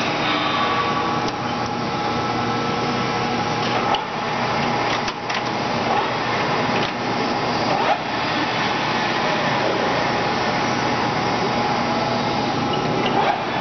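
Acer 24160G engine lathe running, its 4-jaw chuck spinning and the geared headstock giving a steady mechanical whir with a faint steady whine. A few short knocks come about four, five and eight seconds in as the headstock controls are worked.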